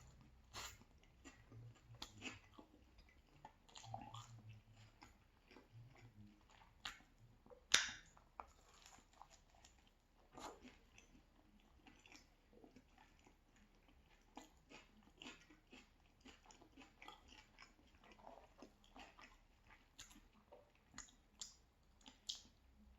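Faint close-miked chewing of pizza with crunchy onion and pepper toppings: irregular soft crunches and mouth clicks, with one louder crunch about eight seconds in.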